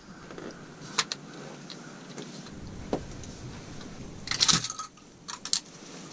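Handling noise of scattered sharp clicks, with a short cluster of metallic rattles about four and a half seconds in and two more clicks just after.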